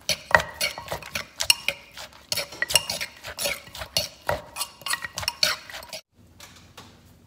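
Spoon and pestle knocking and clinking against a clay mortar as green papaya salad is pounded and tossed, about two or three irregular clacks a second. It stops abruptly about six seconds in, leaving a faint low hum.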